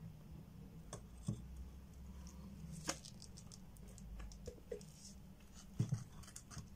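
Faint scattered clicks and scrapes of a plastic stirring stick against a plastic mixing jug and paper cup as resin is poured and scraped out, over a low steady hum.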